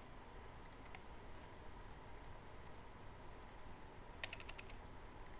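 Faint computer mouse clicks scattered through, then a quick run of keyboard keystrokes a little past four seconds in, typing a permission value into a dialog.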